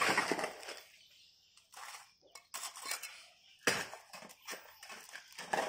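Irregular gritty scrapes and small clinks of cement mortar and stone chips being worked and packed by hand into a hole in a concrete floor.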